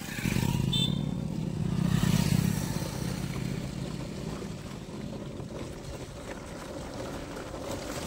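A motor vehicle running along the road: an engine hum with road and wind noise. It swells about two seconds in, then settles to a steady run.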